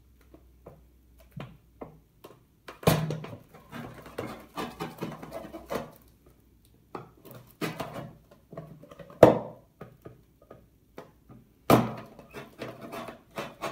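Utility knife cutting slits into a painted Tetra Pak carton, with the coated card crackling and scraping in irregular bursts and three sharp loud snaps about three, nine and twelve seconds in.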